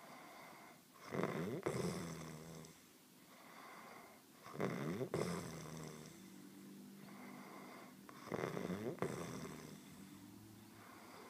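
Two people snoring: three loud snores about every three and a half seconds, with softer, steadier snoring between them.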